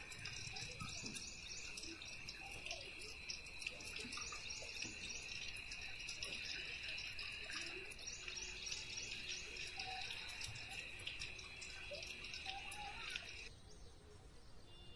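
Insects, cicadas or crickets, shrilling steadily in a high, rapidly pulsing drone that cuts off suddenly near the end.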